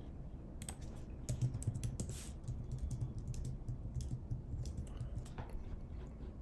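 Typing on a computer keyboard: irregular, scattered keystrokes as numbers are entered into a spreadsheet.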